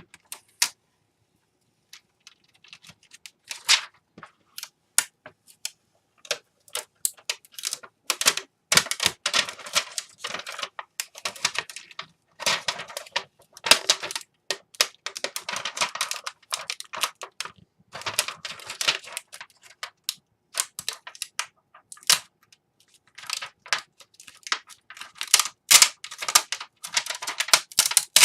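Crackling plastic and quick irregular clicks as a plastic film is cut and peeled away inside a Dell Inspiron 11 laptop during a keyboard replacement. The sound comes in uneven bursts with short pauses between them.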